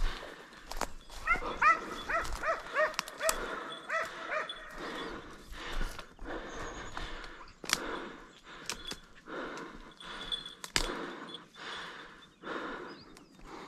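A hunting hound barking: a quick run of about ten short barks, about three a second, then stopping. After that come scattered crackles and snaps of brush and footsteps.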